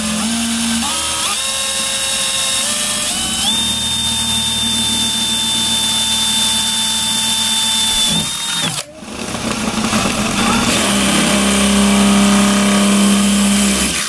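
DeWalt XR cordless drill boring into the bus's metal side panel. The motor whine steps up in pitch a few times over the first few seconds, then holds steady. It stops briefly near the nine-second mark, then starts again a moment later and runs steadily at a lower pitch.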